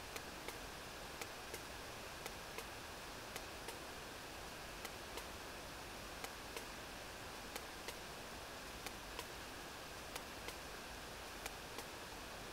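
Sperm whale echolocation clicks picked up by a hydrophone: sharp, regular clicks coming in pairs about a third of a second apart, the pairs repeating roughly every second and a quarter, over a steady underwater hiss.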